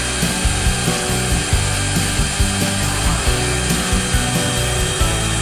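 DIY CNC router spindle carving MDF with a V-bit: a steady cutting noise with a thin high whine. Background music with a steady beat of about two pulses a second plays underneath.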